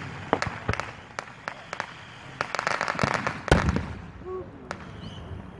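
Fireworks popping and crackling, with a dense run of crackles midway that ends in a louder bang.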